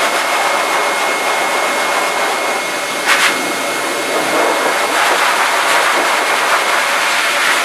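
Dog grooming dryer blowing air through its hose and nozzle: a steady loud rush of air with a thin, steady high whine from the blower. The air surges briefly louder about three seconds in.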